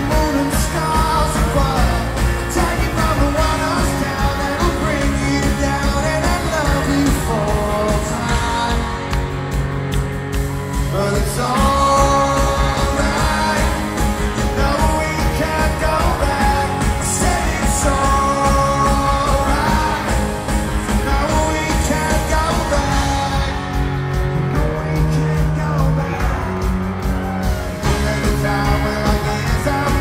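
Live rock band performing a song, with a male lead vocal sung over electric guitar and full band.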